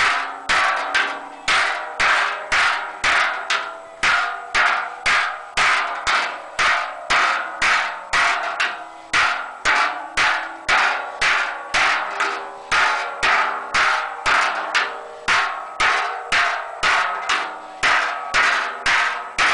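Hand hammer striking the wall of a large sheet-metal cauldron as it is formed, in steady blows about two a second, each followed by a short metallic ring.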